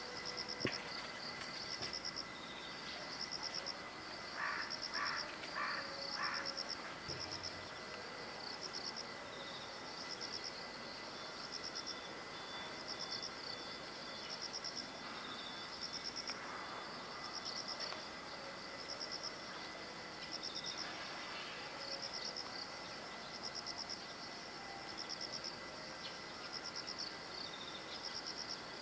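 Outdoor ambience of insects chirping in short pulsed trains, repeating over and over above a steady faint hiss. A sharp click comes just under a second in, and four short calls about four seconds in.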